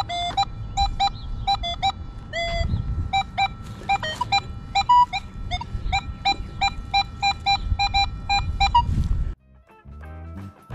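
Nokta Legend metal detector giving rapid short beeps at shifting pitches as its coil is swept over the ground, with a low rumble underneath. The beeping cuts off suddenly a little before the end.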